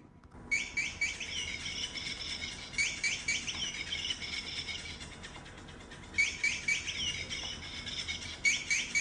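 Potaroma plush sandpiper cat toy playing its built-in electronic chirping: bursts of rapid, high-pitched tweets with short pauses between them.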